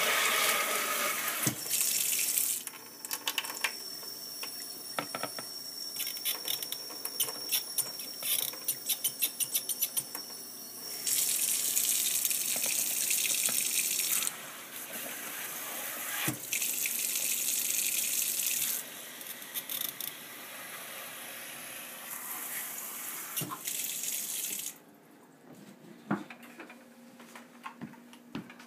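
Kitchen tap running into a plastic water bottle held under it in a stainless steel sink. The rush of water swells and eases as the bottle is moved, with a stretch of fast crackling clicks in the first half. The water stops about 25 seconds in, leaving a few light knocks.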